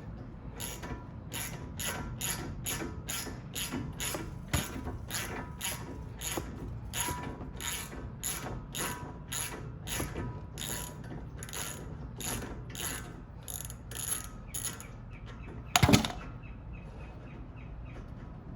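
Socket ratchet wrench clicking steadily, about two clicks a second, as a brake caliper bolt is backed out with an Allen socket, followed by a single loud knock near the end.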